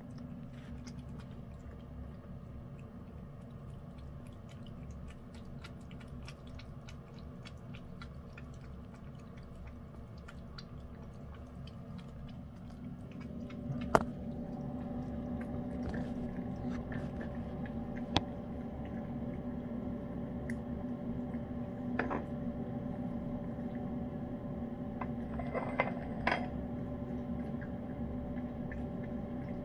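A cat eating flaked tuna-and-salmon wet cat food: many small wet chewing and lapping clicks over a steady low hum. A sharp knock comes about halfway through, with a few fainter ones later.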